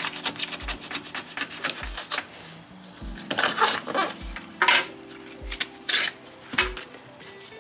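Utility knife blade cutting and scraping through the pleated paper element of a used coolant filter, in quick short strokes with several louder rasping strokes from about three seconds in. Background music with a steady beat runs underneath.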